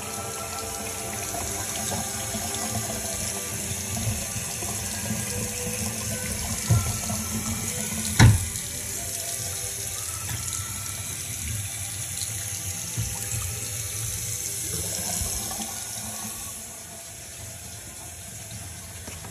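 Faucet running steadily into a bathroom sink, the water splashing into the bowl and down the drain. A sharp knock stands out about eight seconds in, and the water noise falls away near the end.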